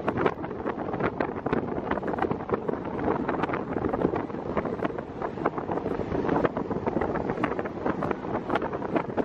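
Wind buffeting the microphone in a steady, crackly rush on the open deck of a ferry under way at sea, with the low wash of the moving ship and water beneath it.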